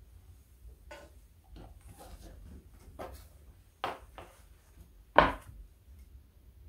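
Handling sounds at a quilting cutting mat: a fabric block rustling as it is laid down and an acrylic quilting ruler knocking as it is set down on it. A few light knocks and rustles, the loudest a sharp knock about five seconds in.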